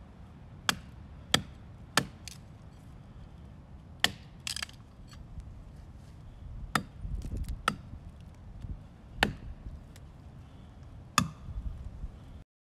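Large Wenger Wolverine bushcraft knife chopping and splitting dry wood against a log: about ten sharp, woody strikes at uneven intervals of roughly half a second to two seconds, with handling and rustling between them.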